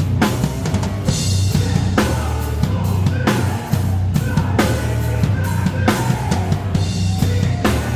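Drum kit played hard in a band song, with kick, snare and cymbal strikes about once a second over a steady low bass line and other pitched instruments.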